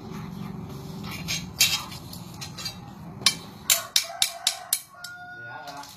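Polished jade offcuts clinking against one another as they are picked through and handled, a few sharp clicks and then a quick run of about six clicks past the middle.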